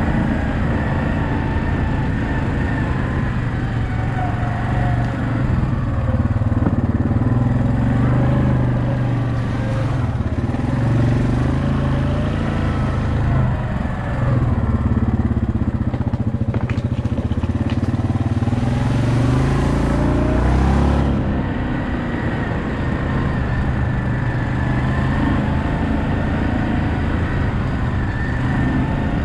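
2018 Yamaha Kodiak 700 ATV's single-cylinder four-stroke engine running as it is ridden, its pitch rising and falling with the throttle. A rushing noise joins it for about ten seconds in the middle.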